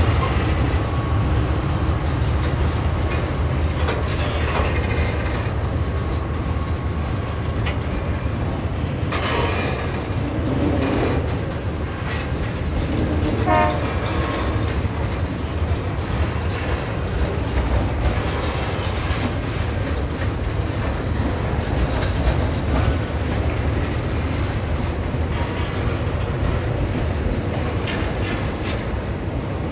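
Freight train boxcars rolling past at steady speed: a continuous low rumble of steel wheels on rail with irregular clatter from the wagons and a brief squeal about halfway through.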